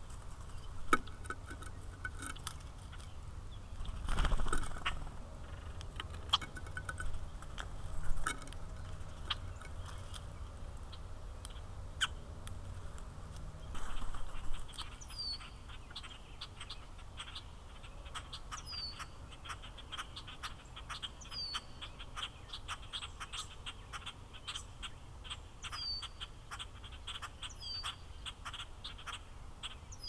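Outdoor ambience of wild birds from a feeder-cam microphone. Many small clicks and chirps carry on throughout, with two brief louder rushes of noise about 4 and 14 seconds in. In the second half a short, high, falling call repeats every few seconds.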